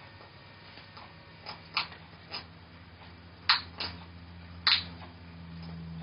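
A handful of short sharp clicks and taps, the loudest two about three and a half and nearly five seconds in, over a steady low hum that grows louder in the second half.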